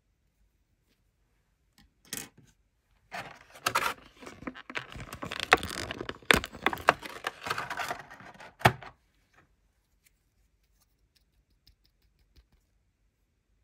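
Clear plastic blister packaging crinkling and crackling as small black plastic toy accessories are pulled out of it, with several sharp snaps. A short burst comes about two seconds in, then steady handling from about three to nine seconds.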